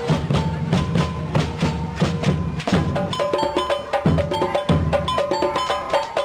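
Music with fast, busy percussion strikes over a low bass line.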